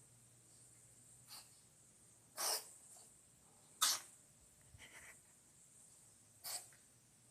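A cat sneezing over and over: a light sneeze just over a second in, then three strong, sharp sneezes, the loudest about four seconds in.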